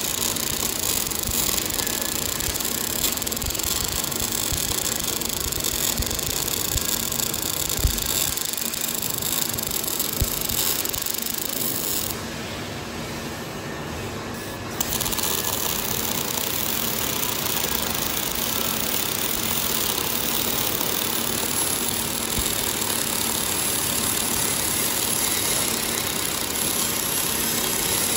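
Robotic arc welding: the arc runs with a steady high hiss over a constant machine hum, stops for about two and a half seconds midway, then strikes again and carries on.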